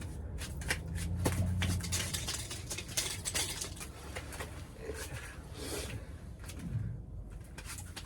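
Scattered sharp clicks and knocks from handling fishing gear inside an ice fishing shelter, with a low hum for the first two seconds.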